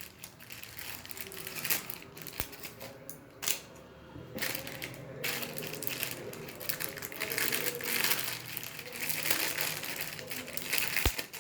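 Irregular rustling and crinkling handling noises with scattered clicks and knocks, as things are moved about while cooking.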